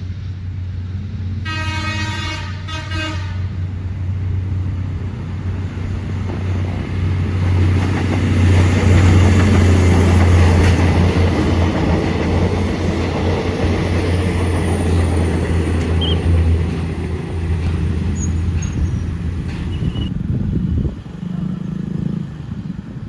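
Indonesian diesel train sounding its horn twice, a long blast and then a short one, then passing with a loud engine hum and wheels running on the rails. The sound builds to its loudest around the middle and fades near the end.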